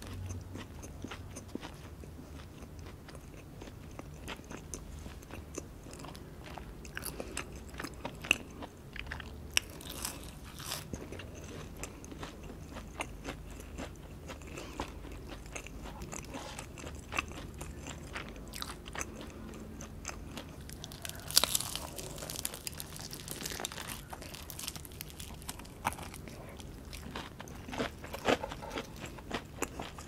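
Close-miked chewing and biting of fast food, with crisp crunches over a low background hum. The loudest crunches come about 8, 10 and 21 seconds in, with a quick run of them near the end.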